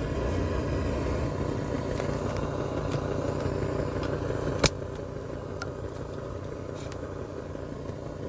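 Steady low rumble inside a car, with a single sharp click about four and a half seconds in, after which the rumble is quieter.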